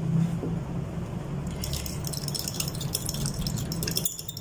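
A fork beating a raw egg into a wet chicken marinade in a glass bowl. Rapid clicking of the fork against the glass starts about a second and a half in, over a low steady hum.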